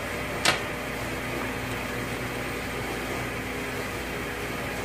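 A steady mechanical hum with one sharp knock about half a second in, from hands working at a bare cast engine block.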